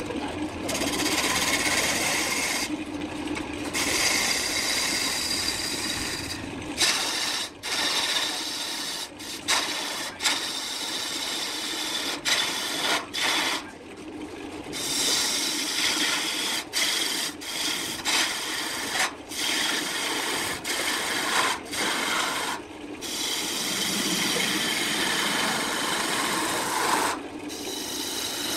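A gouge cutting the spinning wooden workpiece on a wood lathe: a dense rasping hiss of shavings being peeled off, broken by many brief pauses as the tool is lifted off the wood, with the lathe still running underneath.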